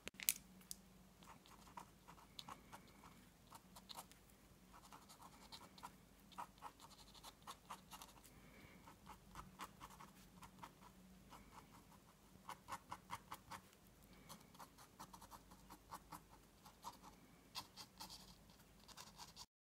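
Faint, quick scratching strokes of a Pebeo drawing gum pen nib on watercolour paper, flicking in short grass marks in bursts of several strokes at a time.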